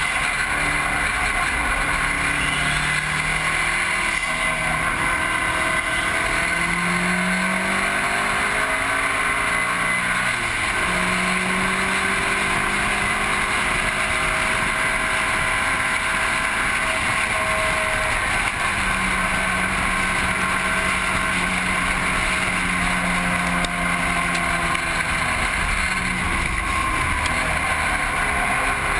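Mitsubishi Lancer Evolution VIII's turbocharged 2.0-litre four-cylinder under hard track driving, its note climbing and dropping repeatedly as it accelerates and lifts for corners. A steady rush of wind and tyre noise runs under it, picked up by a camera mounted low on the outside of the car.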